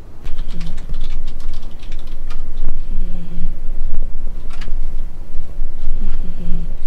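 Domestic cat in deep sleep, snoring close to the microphone: a short, low snore about every three seconds over a steady low rumble, with scattered clicks and rustles.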